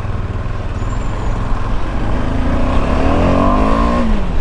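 KTM 390 Adventure's single-cylinder engine pulling under way, with a heavy low rumble of riding noise; its pitch climbs from about two seconds in, then drops sharply near the end.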